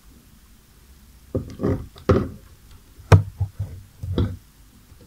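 A screw set into the plastic cable strain relief of an Apple 85 W MagSafe charger being struck repeatedly to drive the strain relief's inner core out. About six short, irregularly spaced knocks begin about a second and a half in; the one about three seconds in is the sharpest.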